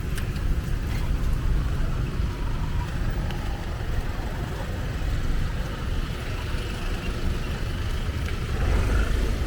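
Street noise with a steady low rumble of road traffic.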